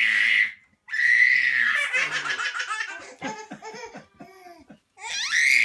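Baby laughing: a high squeal, then a run of quick belly laughs, and another rising squeal near the end.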